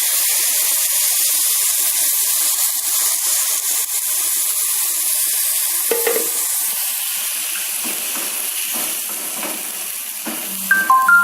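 Water poured into a hot pan of fried spice paste and grated coconut, sizzling with a loud hiss that slowly dies down; from about eight seconds in, a spatula stirs and scrapes the pan.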